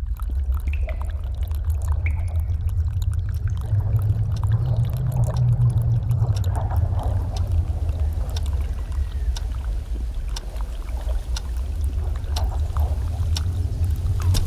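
Wind blowing, heard as a steady low rumble with a few faint clicks over it.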